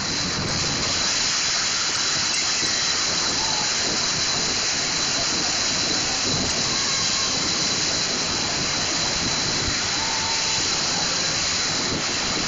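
Steady rushing water noise without pitch, holding at an even level throughout.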